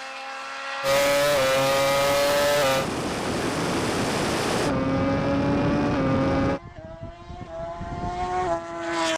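Racing vehicles at full speed in a drag race: a steady, high-pitched engine or motor note that sags slightly in pitch, with wind and tyre rush, changing abruptly several times as shots cut. In the middle there is mostly rushing noise.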